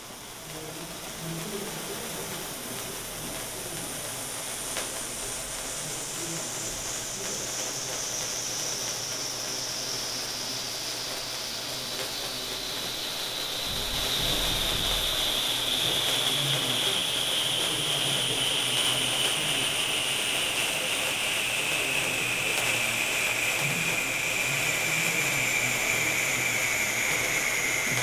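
Phantom Fireworks H-131A Smokeless Celebration Candle, a sparkler cake fountain, burning with a steady spraying hiss. A high tone in the hiss slowly falls in pitch, and the hiss grows louder about halfway through as the spray gets taller.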